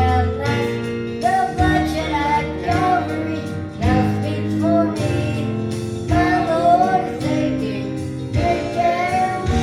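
Country gospel band playing an instrumental break between verses: a melody line over steady bass notes and strummed guitar.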